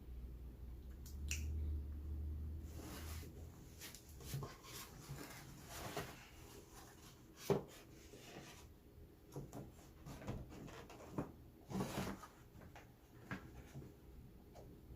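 Close-miked eating sounds: chewing and mouth noises with scattered clicks and taps from handling the food and its container. The loudest is a sharp click about seven and a half seconds in.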